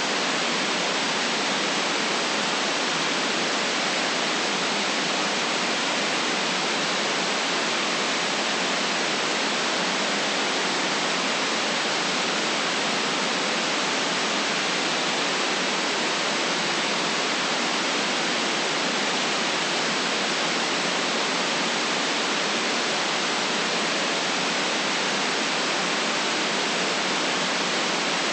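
Steady white noise: an even, unchanging hiss with no deep bass and no separate events in it.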